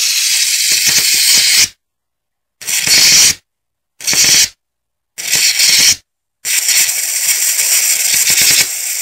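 High-voltage electric arc hissing loudly. It comes in five stretches of about half a second to three seconds, each starting and stopping abruptly, with dead silence in between.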